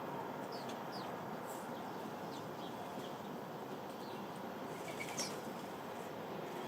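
Short, scattered chirps of sparrows over a steady background hum, with one louder chirp about five seconds in.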